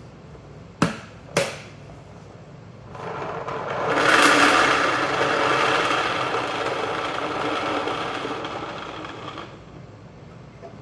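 Two sharp clicks, then about six seconds of roughly 600 paintballs pouring from a jug into a 3D-printed pod filler, a dense rush of balls that is loudest near the start and slowly tapers off.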